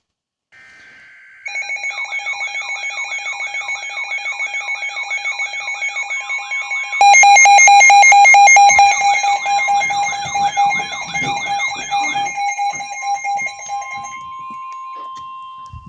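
Several weather alert radios sounding their alarms at once for a severe thunderstorm warning. A warbling alarm sweeps up and down a little over twice a second, and about seven seconds in a much louder rapid beeping joins it. A steady tone near 1 kHz, the NOAA Weather Radio 1050 Hz warning tone, runs under them and continues after the alarms stop.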